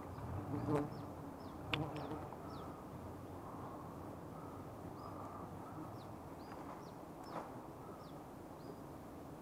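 Wild honeybees buzzing steadily around a comb being cut into a plastic bag. A couple of sharp clicks come in the first two seconds, and a bird's short high chirps are scattered throughout.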